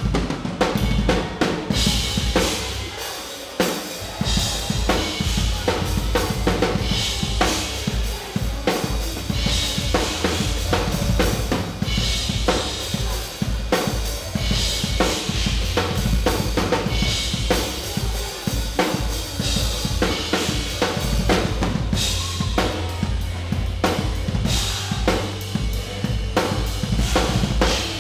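Rock drum kit played hard at close range: a steady driving pattern of kick drum and snare hits with cymbal crashes recurring every couple of seconds.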